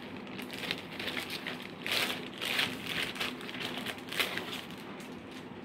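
Clear plastic bag crinkling and rustling as a laptop is handled and slid out of it, a run of irregular crinkles loudest around the middle that settles down near the end.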